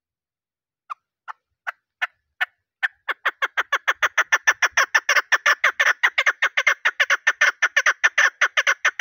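Female chukar partridge calling: a few separate, spaced clucks that quicken after about three seconds into a fast, even run of chuck calls.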